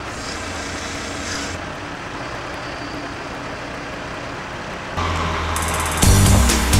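Engine of a truck-mounted crane running steadily with a low hum. Music with a regular beat comes in just before the end.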